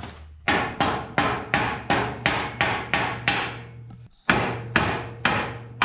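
Hammer blows driving a steel roll-cage tube onto its splice sleeves, about four strikes a second with a faint metallic ring. There is a short pause near the end, then a few slower blows seat the tube.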